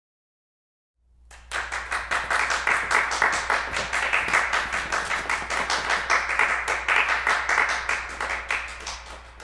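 Hand clapping, starting about a second in and fading out near the end, over a steady low hum.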